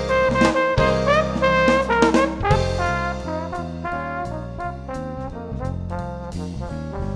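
Background music: a jazzy tune played on brass instruments, with notes changing every fraction of a second.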